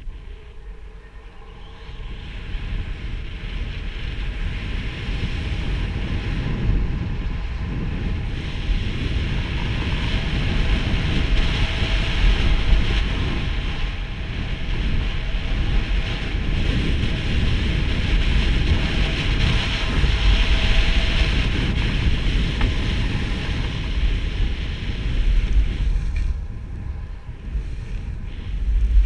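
Skis running fast downhill on snow: a steady hiss of the skis sliding over the snow, with wind rumbling on the microphone. It builds about two seconds in and eases near the end.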